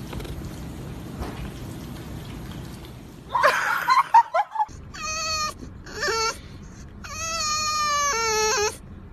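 A short, harsh, noisy outburst a little past three seconds in. From about five seconds in, a French bulldog whines in a run of high calls, the longest held about a second and a half and dropping in pitch near its end.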